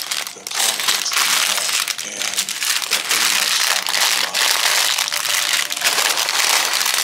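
Clear plastic bags of LEGO pieces crinkling loudly and without a break as hands pick them up, squeeze and turn them over.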